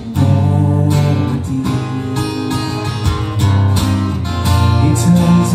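Steel-string acoustic guitar strummed in a steady rhythm, ringing chords changing every second or so.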